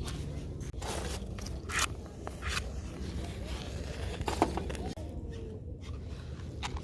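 Scattered scrapes and sharp clicks, some close together, over a steady low rumble.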